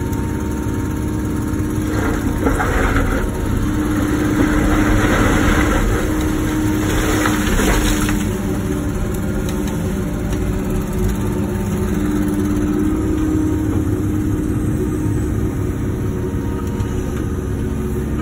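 Wacker Neuson ET145 excavator's diesel engine running steadily, growing louder with added hiss and rattle for several seconds from about two seconds in.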